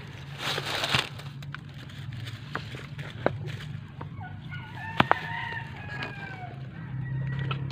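A rooster crowing, one long crow from about four seconds in that rises and then falls. Sharp clicks and knocks of plastic pipe fittings being handled, the loudest about five seconds in.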